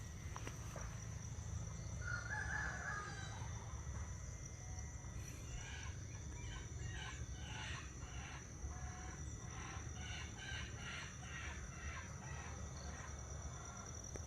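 A rooster crows once about two seconds in, followed by a run of short repeated clucking calls from chickens.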